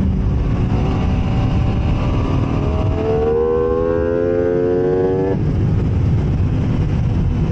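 MV Agusta F3 inline-three sport bike engine under hard acceleration on a race track. The revs climb steadily from about three seconds in, then drop off sharply a couple of seconds later, with a constant rush of wind and road noise underneath.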